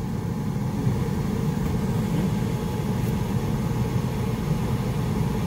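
1987 Peterbilt 379's diesel engine idling steadily, a low even hum heard from inside the cab.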